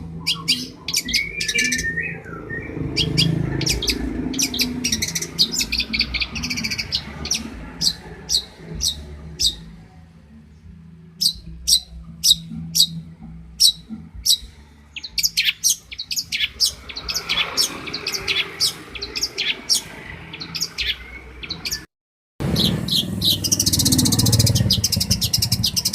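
Long-tailed shrike (cendet) singing: runs of sharp, high, quick chips and trills. The sound cuts out for half a second about 22 seconds in, after which the notes come faster and denser over a low background hum.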